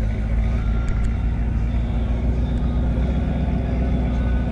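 A nearby engine idling, a steady low rumble.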